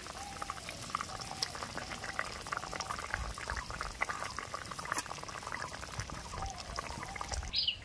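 Thin curry broth with potato and brinjal pieces boiling hard in a metal pan, giving a steady crackle of many small bursting bubbles.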